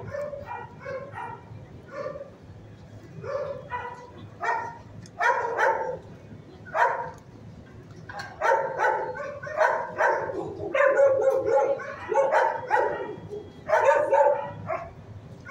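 Dogs barking in an animal shelter's kennels: short barks again and again, in clusters with brief gaps between them.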